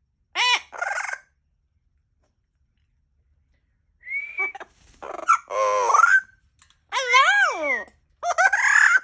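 Amazon parrot vocalizing: two short calls, a pause, then from about four seconds in a string of loud calls, each under a second long, whose pitch swoops up and down.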